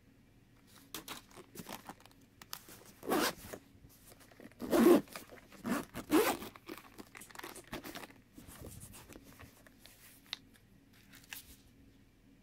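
Handling of a zip-around hard-shell camera carrying case: a run of short rasping, scraping sounds, loudest about a third of the way in, as the case's zipper is drawn open. Lighter scratchy rustles follow as the lid is opened.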